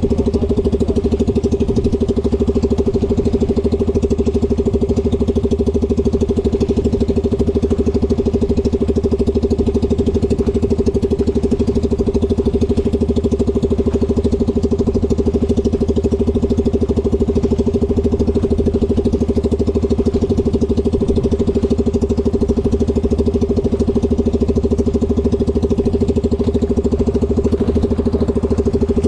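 An engine running steadily at a constant speed with a fixed low hum.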